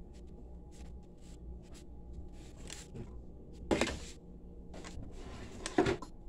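A phone camera being picked up and handled: faint scrapes and clicks, then two sharp knocks about two seconds apart as it is moved, over a low steady hum.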